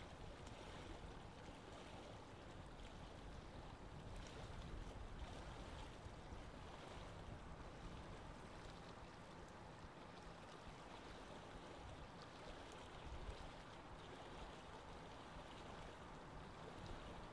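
Near silence: a faint steady hiss of background noise, with a few faint ticks.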